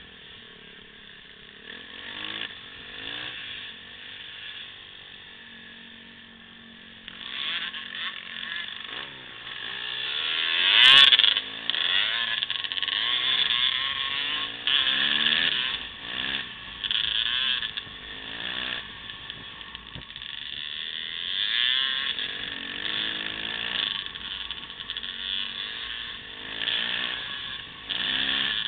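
Motocross dirt bike engine revving up and down again and again as the throttle is opened and closed, its pitch rising and falling, loudest around ten seconds in.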